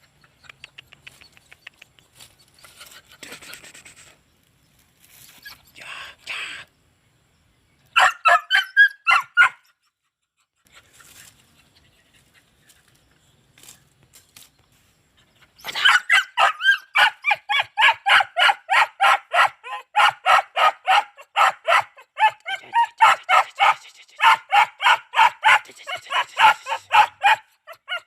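Hunting dogs barking in fast, even runs of about three to four barks a second: a short burst about eight seconds in, then a long, loud run from about halfway through. Fainter scattered sounds come before.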